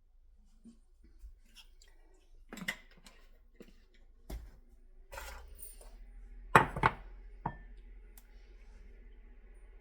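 Kitchen handling sounds as eggnog is measured into a cup: scattered knocks and clinks of dishes and containers set down and picked up, the loudest a pair of knocks about two-thirds of the way through.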